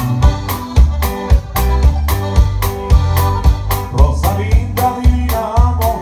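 A norteño band playing live with a steady beat: button accordion, twelve-string bajo sexto, electric bass and drum kit.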